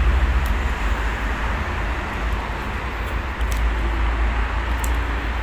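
Wind buffeting the microphone: a steady rumble and hiss.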